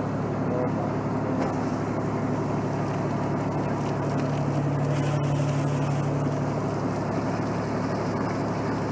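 Fire tender's engine running hard to drive its pump, a steady deep drone, with the rushing hiss of the water jet from its roof-mounted water cannon.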